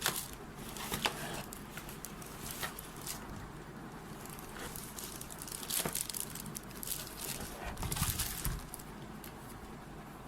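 Items and packaging being handled: irregular rustles, taps and clicks, a little louder about six and eight seconds in.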